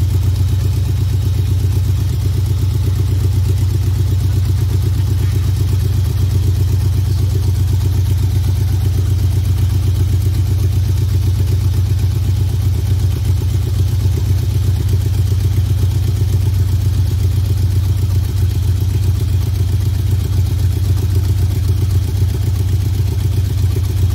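Dodge Ramcharger's engine, fed by a newly installed Carter Thermoquad carburetor, running steadily at a constant speed, with no revving.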